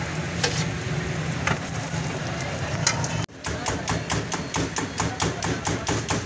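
Eggs being beaten by hand in a steel bowl: fast, even clicks of the utensil against the bowl, about five a second, starting about three seconds in. Before that, a few scattered clicks over a steady low hum.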